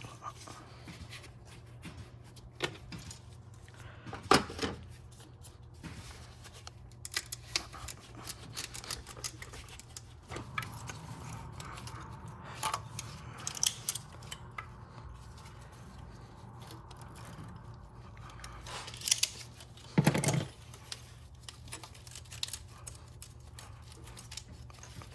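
Hand tools clicking, scraping and knocking on metal as a hose clamp and radiator hose are worked loose in an engine bay, with a few louder knocks and a stretch of scraping in the middle, over a faint steady hum.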